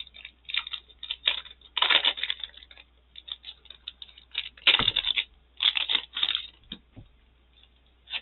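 Notebook packaging being handled and opened: irregular bursts of crinkling, rustling and tearing, loudest about two seconds in and again around five to six seconds in.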